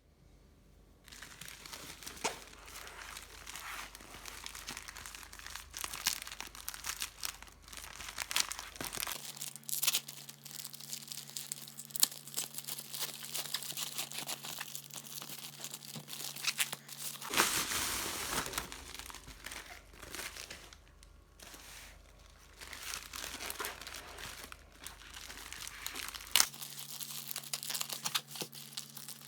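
Packaging being handled: plastic wrap or protective film crinkling and tearing, with repeated sharp crackles.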